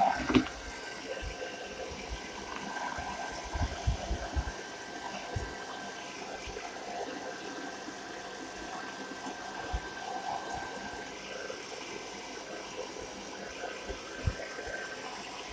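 Hair dryer blowing on a low setting, a steady rushing hiss with a faint steady whine, and a few soft bumps.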